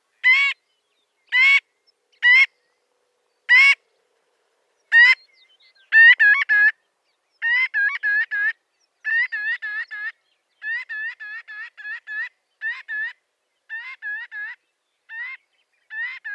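Marbled godwit calling: single sharp upslurred calls about a second apart, then from about six seconds in, quick runs of three to five notes repeated over and over.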